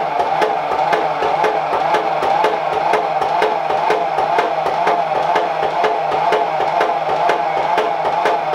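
Background music with a quick, steady ticking percussion beat, about four or five ticks a second, over a sustained tone.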